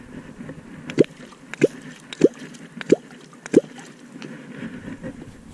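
Catfish clonk struck into the water five times in an even rhythm, about two-thirds of a second apart, each stroke a deep hollow plop with a short gulping sweep in pitch. This is clonking to call catfish up to the bait.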